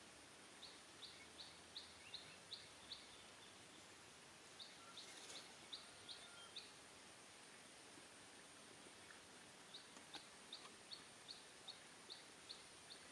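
A bird calling faintly: three runs of short, high notes, each run repeated about three times a second.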